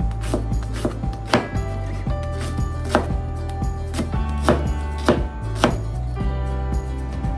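Kitchen knife chopping myoga (Japanese ginger) finely on a cutting board: sharp taps of the blade on the board at an uneven pace, a few of them louder, over background music.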